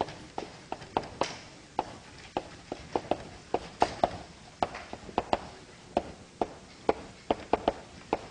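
Chalk tapping and knocking against a blackboard in quick, irregular strokes as lines of code are written out.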